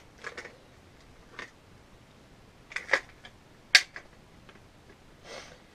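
Scattered small clicks and knocks from handling an airsoft HK416 while its LiPo battery is unplugged and taken out, with one sharper click a little under four seconds in.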